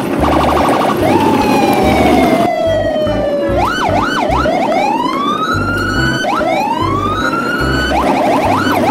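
Electronic sound effects over a bass beat: quick beeping at the start, then a long falling whistle-like glide, then repeated rising and falling siren-like wails.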